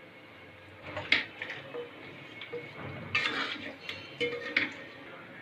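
Raw chicken pieces being mixed by hand into a yogurt and lemon-juice marinade in a bowl: scattered, irregular clinks and knocks against the bowl with soft wet mixing.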